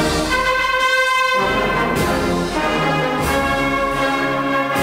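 Brass band music: held, sustained chords that change about every second.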